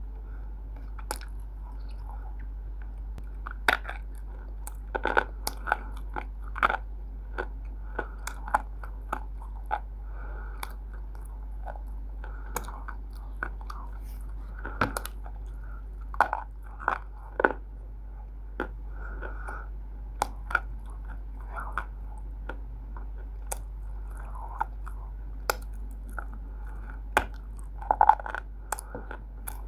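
Biting and chewing roasted multani mitti (Fuller's earth clay), with irregular sharp crunches every second or so. A steady low hum runs underneath.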